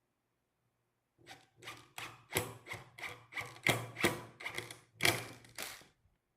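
A run of about a dozen quick, rasping strokes on wood, two or three a second, starting about a second in and stopping near the end, with a faint low hum underneath.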